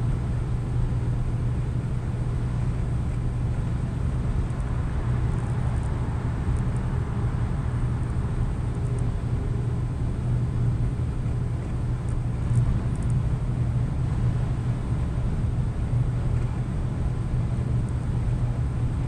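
Scania truck cruising at highway speed: a steady low engine drone with even tyre and road noise.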